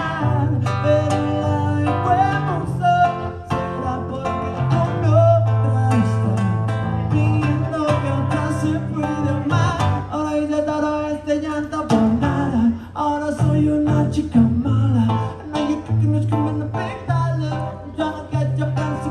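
Music: an acoustic guitar played with a singer's voice over it, at a steady level with no pauses.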